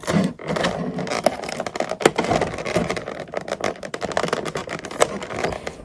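Fingers picking and scratching at stubborn adhesive tape stuck to a card in the packaging: a dense, continuous run of small scrapes, crinkles and sharp clicks.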